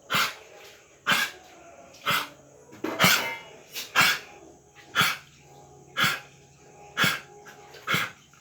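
Dog coughing: a deep, dry, honking cough repeated in a steady run, one short cough about every second.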